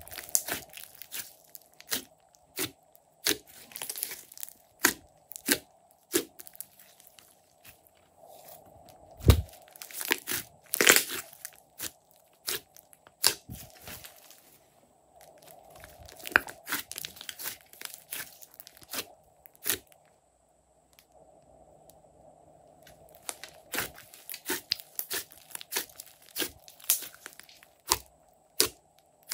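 Hands squishing, pressing and stretching glossy slime: quick wet clicks and pops as air pockets burst, coming in bursts with short pauses, one longer pause about two-thirds of the way through.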